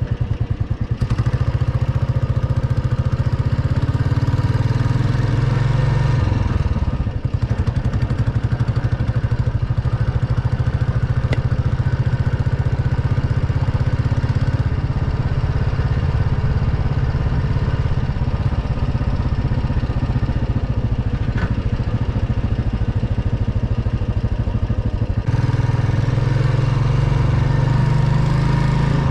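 Royal Enfield Bullet's single-cylinder engine running under way. It pulls harder over the first few seconds, eases off briefly about seven seconds in, holds a steady cruise, then opens up again near the end.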